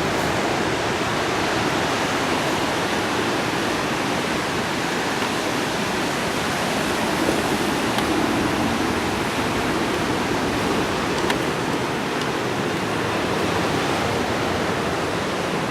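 Atlantic surf breaking on the shore, a steady rushing wash of waves with no breaks.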